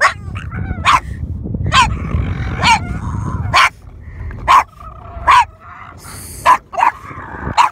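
Boston terrier barking in short, sharp barks, about one a second, each dropping in pitch, with a low rumble underneath for the first half.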